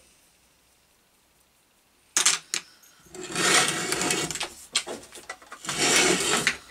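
Metal electric-motor housing and end cover being handled on a workbench during disassembly: a couple of sharp clicks about two seconds in, then two spells of rattling and scraping as the parts are turned over and moved about.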